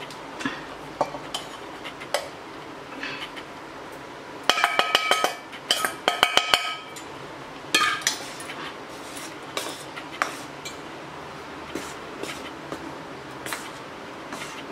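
Metal spatula clinking and scraping against a steel cooking pot as rice flour is added to cooked pumpkin and stirred in. About halfway through come two quick runs of rapid, ringing metal taps, then a single ringing knock.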